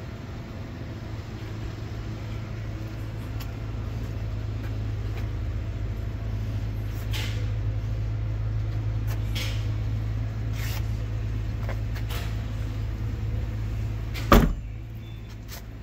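A steady low hum with a few faint clicks of handling, then about fourteen seconds in a single loud thump as the 2011 Subaru Tribeca's rear liftgate is shut, after which the hum drops away.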